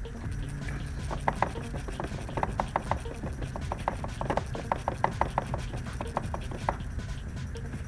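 Ratchet wrench clicking in quick runs of short sharp clicks as it is swung back and forth on a fastener.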